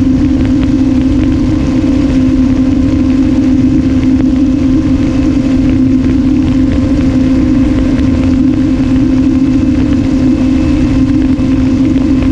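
Electric motor and propeller of an RMRC Strix Strato-Surfer flying wing in cruise, heard from the onboard camera: a steady drone holding one pitch, over a low rumble.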